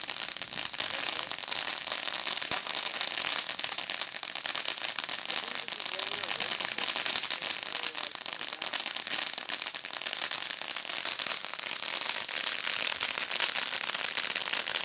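Firework fountain spraying sparks: a loud, steady hiss with dense crackling throughout, which cuts off suddenly right at the end.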